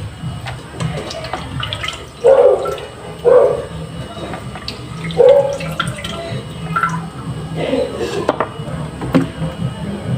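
Water splashing and dripping in a washing machine tub during laundry, with several louder splashes and a few short clicks.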